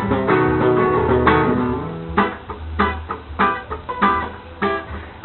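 Instrumental guitar music: ringing chords over a low bass line for about two seconds, then short strummed strokes at a steady pace, no singing.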